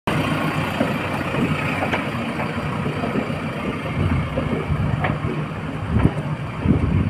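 Diesel engine of a backhoe loader running steadily, with a few short knocks about five and six seconds in.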